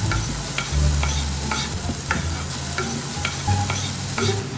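Sliced chicken breast sizzling as it fries in a pan, with a utensil stirring and scraping it in short strokes about twice a second.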